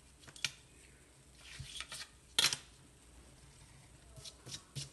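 Pencil scratching in short strokes on drawing paper, with a few sharp clicks and knocks as a clear plastic ruler is picked up and set down; the loudest knock comes about two and a half seconds in.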